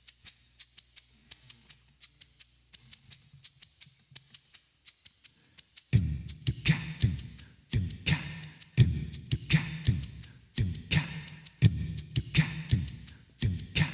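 Instrumental jazz-funk intro: fast, crisp percussion ticks over a faint low held note, then about six seconds in a kick drum and bass come in with a repeating groove.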